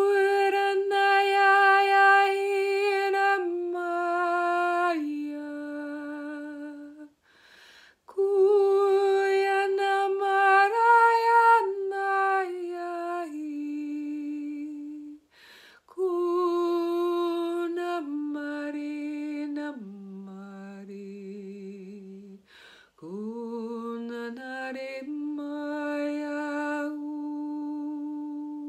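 A woman's unaccompanied, wordless light-language toning: long held vowel notes that step down in pitch, sung in four phrases with a short breath between each.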